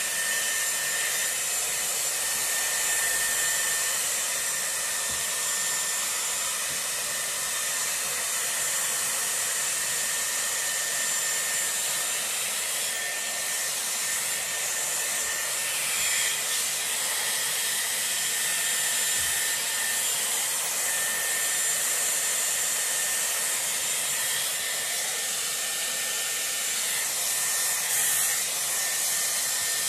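Dyson Airwrap with its round brush attachment running steadily: an even rush of blown air with a faint, steady high whine from the motor.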